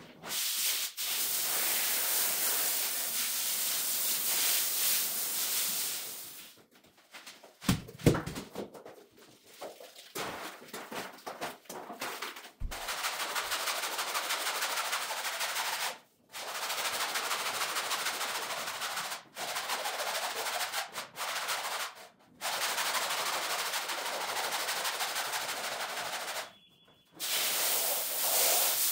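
Pressure-washer spray hissing steadily onto a soaked rug on a wet floor, cutting off abruptly and starting again several times. A choppier stretch in the middle holds a few sharp knocks and wet thumps.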